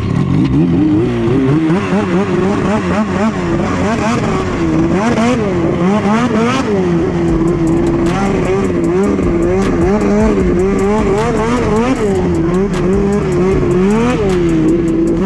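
A Polaris 600R race snowmobile's two-stroke engine being ridden hard, its revs climbing and dropping again and again as the throttle is worked.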